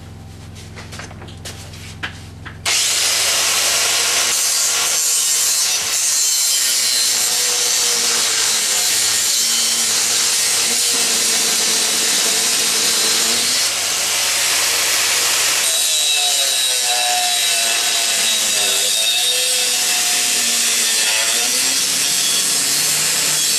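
Angle grinder with a cutoff disc cutting through a metal piece. It switches on about three seconds in and runs steadily under load, with a whine that wavers in pitch. The cutoff disc is worn down small.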